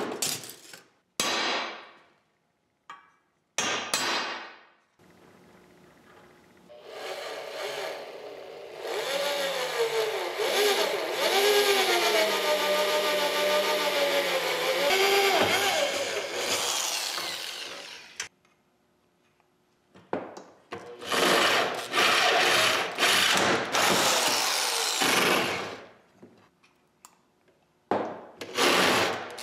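A few sharp hammer taps on a center punch marking steel angle, then an electric drill boring a hole through the rusty steel. The drill whine wavers in pitch as it cuts, then after a short pause comes back in several shorter bursts.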